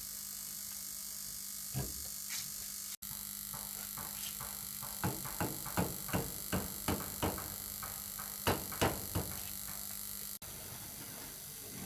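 A steady electric hum, with a run of about a dozen sharp taps or knocks, roughly two a second, in the middle.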